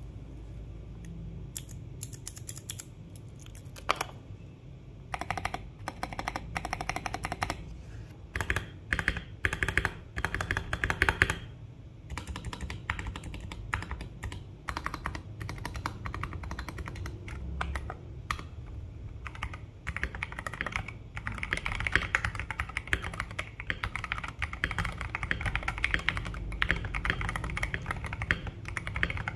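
Typing on a KBD67 Lite R2 mechanical keyboard fitted with C3 Kiwi tactile switches: a steady stream of keystroke clacks, with faster, louder runs of typing around ten seconds in and again through the second half.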